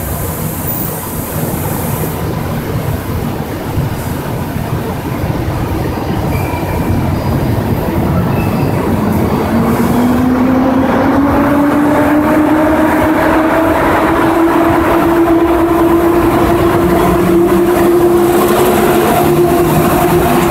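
EP07 electric locomotive pulling away with a passenger train: a steady rumble, then from about eight seconds in a whine that rises slowly in pitch as it gathers speed. It grows louder as the coaches roll past, with wheels clacking over rail joints.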